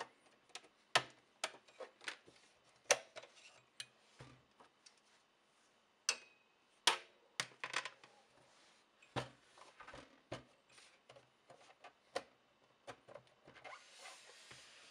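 Irregular sharp clicks and knocks of hard plastic as the plastic case of an HP/Agilent E3611A bench power supply is pried at its clips with a pry tool and handled. A rubbing scrape comes in near the end.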